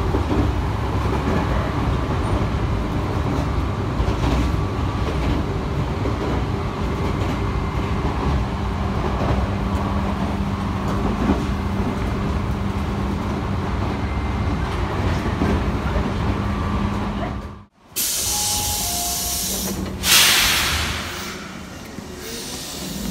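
Electric local train running, heard from inside the car: a steady low rumble with a steady hum. Near the end, after a sudden break, the sound changes to a quieter station platform with a loud burst of air hiss.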